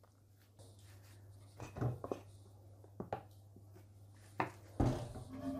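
Quiet handling sounds of a sponge and an IKEA stainless steel roll-up rack over a sink: a few light knocks, then denser rubbing and scraping near the end, over a steady low hum.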